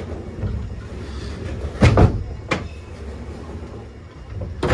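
Hotel-room wardrobe door being pushed open by hand, rumbling as it moves, with a couple of sharp knocks about two seconds in, another soon after, and a further knock near the end.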